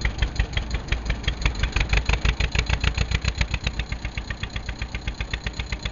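Hanomag R16 tractor's diesel engine running under load while pulling a plough, with a rapid, even knocking beat.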